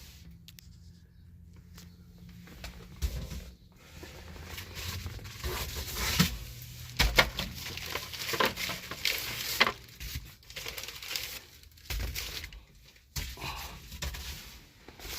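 Irregular rustling and crinkling of parts and packaging being handled, with sharp clicks and knocks about 3 s in and again around 6 to 10 s.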